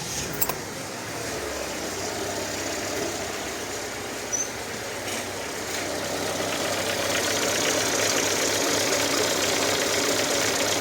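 VAZ-21214 Niva's 1.7-litre four-cylinder engine idling just after being started, with a knock in it that the owner puts down to a slack timing chain that needs tensioning. It grows somewhat louder in the second half.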